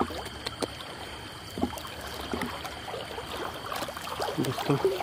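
A person wading through river water deep enough to soak his trousers, legs sloshing and splashing through it in irregular strokes.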